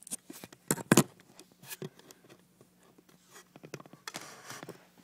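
Handling noise on a phone microphone: scattered knocks and rustles, loudest a pair of thumps about a second in, with a longer rustle near the end.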